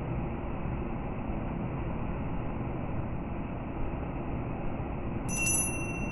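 Steady road, tyre and engine noise inside a car cruising at about 110 km/h on a snow-covered expressway. About five seconds in, a brief high chime of several tones sounds over it.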